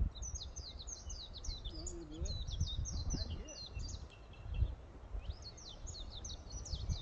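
A songbird singing two runs of rapid, high, quick notes, each lasting about three seconds, with a pause between them. Wind rumbles on the microphone underneath.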